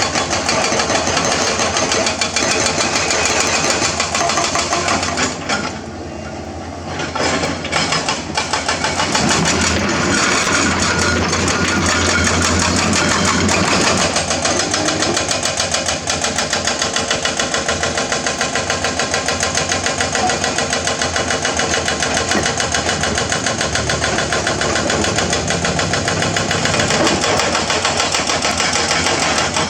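Hydraulic excavator's diesel engine running hard with a fast, even pulsing. It drops briefly about six seconds in, then picks back up.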